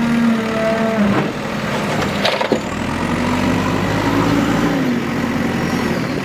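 Diesel engine of a JCB 3DX backhoe loader running under load, its pitch rising and easing off briefly in the middle, with two sharp clunks about one and two and a half seconds in.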